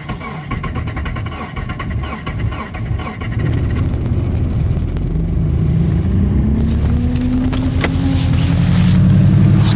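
Subaru EJ206 turbocharged flat-four, cold-soaked at −35 °C, catching about three seconds in and running, its speed climbing slowly with a rising pitch as it struggles to stay lit in the extreme cold. A sharp snap sounds near the end.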